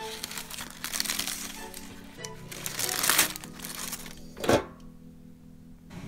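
Parchment baking paper being crumpled and rustled in the hand for about three seconds, over background music, with one short sharp sound about four and a half seconds in.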